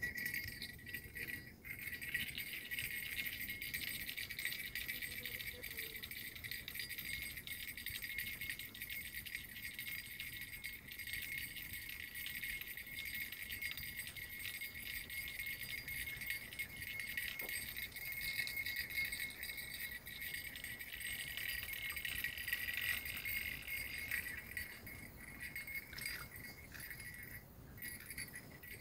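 Fishing reel whirring and rattling steadily as a hooked fish is played and reeled in, easing off near the end as the fish comes to the surface.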